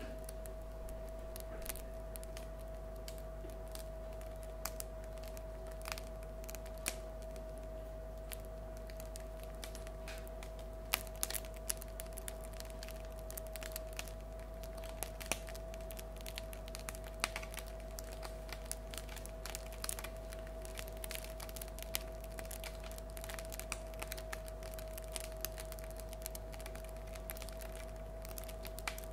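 Crust of a freshly baked loaf of bread crackling as it cools, the 'singing' of bread: an irregular run of small sharp cracks and ticks, coming more often after the first ten seconds or so, over a faint steady hum.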